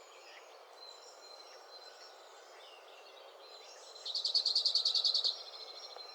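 A songbird sings a rapid, high trill of about a dozen notes a second. It starts about four seconds in and lasts just over a second, over a steady outdoor hiss.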